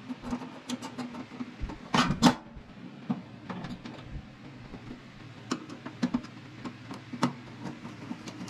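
Hand assembly of a pellet smoker's metal hopper: scattered small clicks and knocks as parts are handled and fitted, with two louder metal clatters close together about two seconds in, over a faint low hum.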